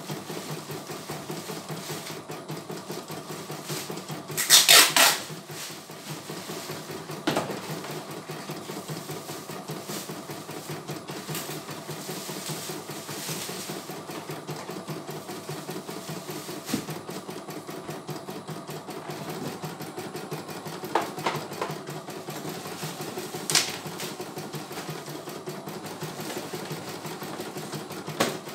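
Computerized embroidery machine (CNY E900) stitching, its needle running in a fast, even rhythm while the embroidery unit moves the hoop. A brief loud rattle comes about five seconds in, and a few sharper clicks follow later.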